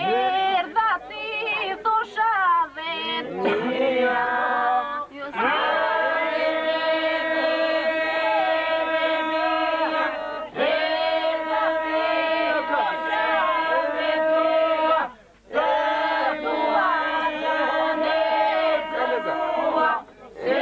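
A small group of voices singing unaccompanied, a southern Albanian polyphonic folk song. Long held notes ride over a steady drone. The group comes in together about five seconds in and breaks off briefly twice.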